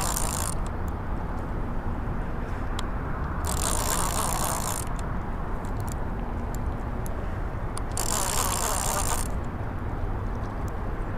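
Fishing reel being cranked in three short whirring bursts as a hooked catfish is reeled in, over a steady low rumble.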